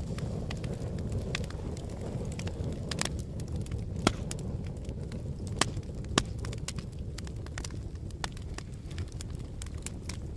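Wood fire crackling, with irregular sharp pops and snaps, a few louder ones about four and six seconds in, over a steady low rushing of wind.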